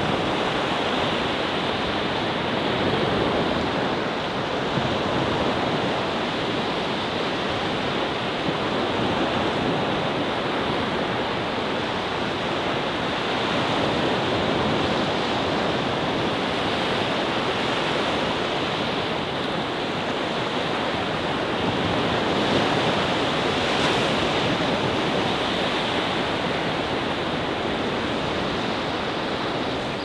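Small Baltic Sea waves breaking and washing onto a sandy, boulder-strewn shore: a steady surf wash with slight swells in loudness as waves come in.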